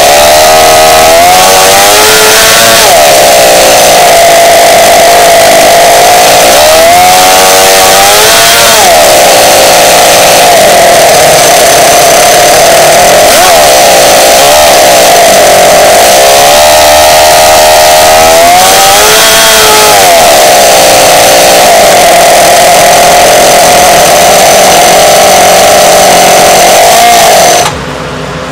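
Toyan FS-L400 inline four-cylinder four-stroke nitro model engine running loud at a fast idle, revved up and back down several times by hand on the throttle.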